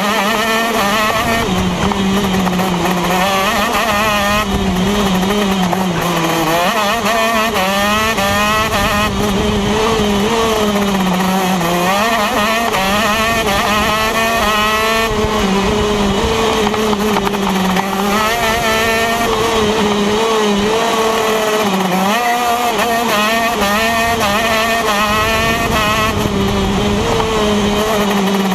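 A TM KZ10 125cc two-stroke shifter kart engine heard from on board, revving high and dropping back again and again as the kart accelerates and slows through corners.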